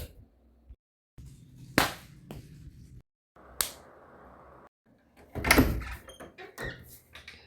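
A string of separate sudden bangs and knocks, each short, with silent gaps between them. The loudest cluster of knocks comes a little past the middle, and a few smaller clicks follow near the end.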